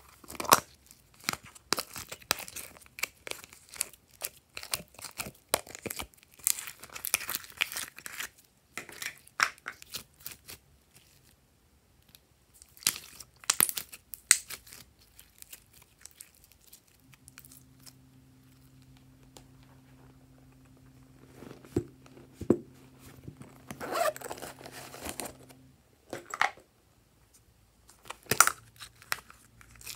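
Slime being handled by hand, with plastic slime-tub lids being opened: sticky crackling and popping squishes and plastic clicks, in bursts with short pauses between. A faint low hum runs through the middle stretch.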